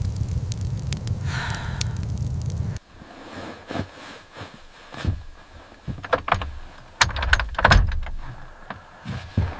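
A fire crackling over a low steady rumble, which cuts off suddenly about three seconds in. Then come scattered knocks, thuds and rustling, the loudest of them near the end.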